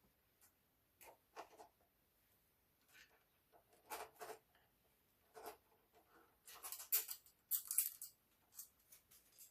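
Small clicks, taps and a few sharp scrapes of tools and screws against a sewing machine's plastic casing while it is being taken apart, with the loudest scraping about two-thirds of the way through.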